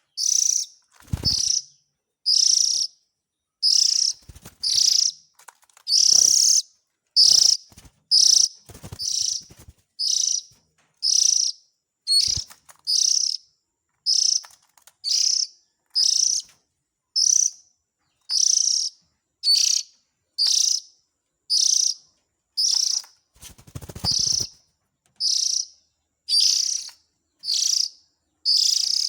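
Oriental magpie-robin (kacer) calls played as a trapping lure: short, raspy high calls repeated about once a second, with a few dull low thumps between them.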